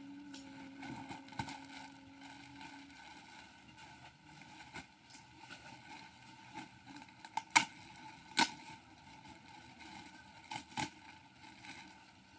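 Plastic packaging being handled: soft rustling with a few sharp crackles, the loudest about halfway through and again near the end.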